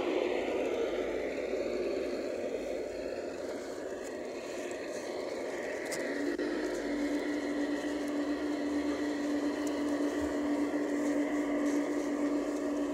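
LGB model of an RhB Ge 4/4 electric locomotive running on garden-railway track: a continuous whir from its electric motor and gear drive, with the wheels rolling on the rails. A steady hum sets in about six seconds in.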